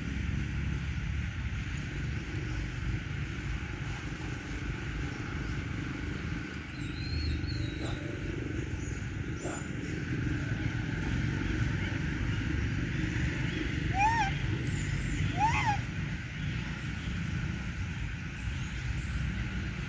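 Steady low outdoor rumble with two short rising-and-falling animal calls about a second and a half apart in the second half, and faint high chirps about a third of the way in.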